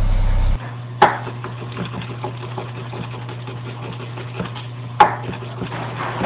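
A knife chopping fast on a plastic cutting board as cucumbers are sliced: a run of quick, light taps, with two sharper knocks about a second in and near the end, over a steady low hum. A louder low drone cuts off about half a second in.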